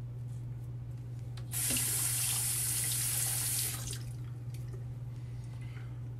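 Bathroom sink tap running for about two seconds, rinsing a safety razor mid-shave; it starts and stops abruptly. A steady low hum runs underneath.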